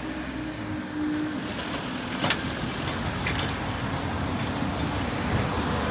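Level crossing warning tone that stops about a second in, then road traffic, cars driving over the wet road towards the crossing, with a sharp click a couple of seconds in.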